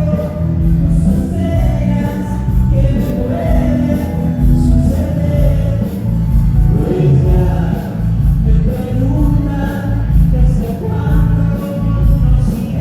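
Loud music with a sung vocal line over a strong bass.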